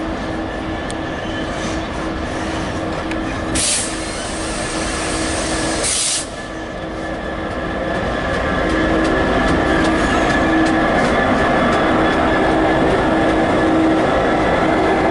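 EWS Class 66 diesel-electric freight locomotive, its two-stroke V12 engine running with a steady hum as it hauls a container train past. There are two short hisses about four and six seconds in, and the sound grows louder about eight seconds in as the locomotive comes alongside.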